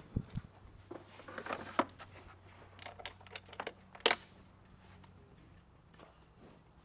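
Clicks, knocks and rustling of hands refitting an air filter into its housing and snapping the clips, with one sharp click about four seconds in.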